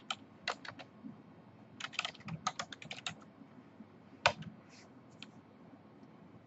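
Typing on a computer keyboard: a few keystrokes at the start, a quick run of keys about two seconds in, and one louder click about four seconds in.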